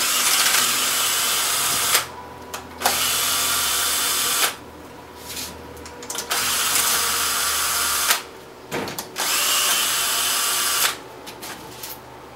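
Power drill backing out the four screws that hold an alternator case together: four runs of about two seconds each, one per screw, with short pauses and small clicks between.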